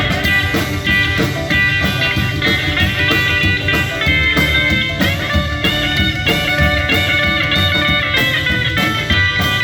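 Live rock-and-roll band playing an instrumental break with no vocals, an electric guitar carrying the lead over bass and a steady drum beat.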